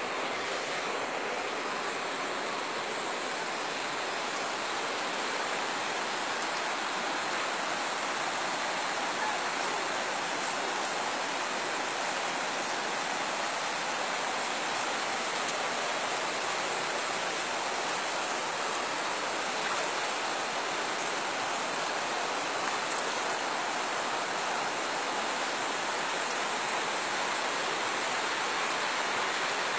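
Floodwater running fast over a road, a steady rushing noise.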